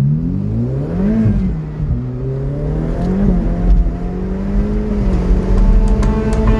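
Car engine revving, its pitch rising and falling several times before holding steadier. Music fades in near the end.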